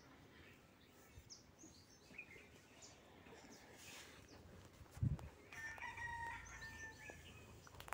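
A rooster crowing faintly, one long call about five and a half seconds in, with a dull thump just before it. Under it, quiet stirring of onions and chillies with a metal spatula in a steel kadai.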